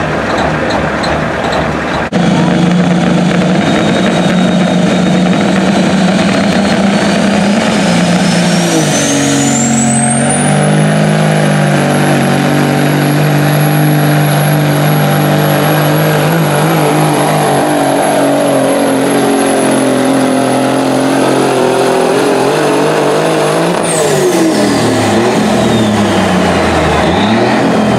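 Semi truck diesel engine under full load pulling a weight sled, with a high turbocharger whistle that climbs over several seconds and then holds steady. Near the end the whistle falls away as the engine comes off load. The engine note drops once early on and dips again later in the pull.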